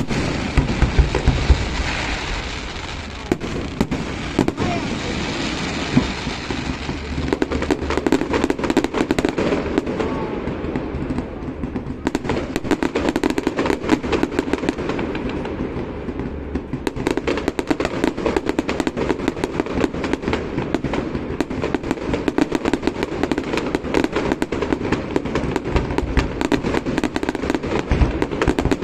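Fireworks display: a dense, continuous crackle of many small bursts, with deep booms in the first two seconds.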